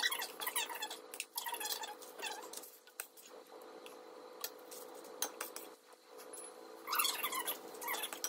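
A spoon scooping sticky muffin batter from a small bowl and dropping it into muffin cases, with a few light clicks of the spoon. A faint steady hum runs underneath, and short voice-like sounds come in near the start and again near the end.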